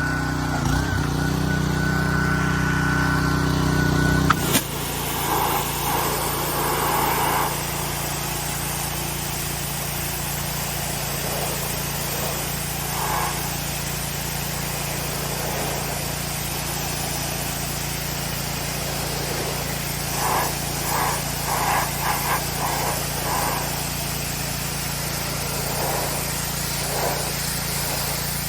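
Pressure washer running: a steady engine hum under the hiss of its spray. About four and a half seconds in the sound changes abruptly to a lower, steadier hum.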